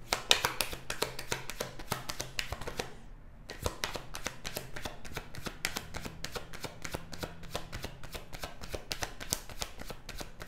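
A deck of tarot cards being overhand-shuffled by hand: rapid, dense clicking and flicking of cards. There is a short break about three seconds in, then the shuffling starts again.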